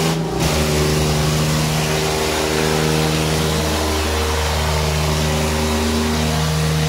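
Diesel engines of two tractors, an Eicher 557 and a New Holland 3630, held at full throttle under heavy load as they pull against each other in a tug-of-war: a loud, steady engine drone.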